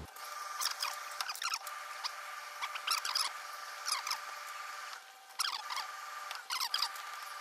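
Short swishing, rustling strokes as the satin lining of a mink coat is smoothed by hand and pressed with an iron, many of them falling in pitch. A steady faint hum runs underneath.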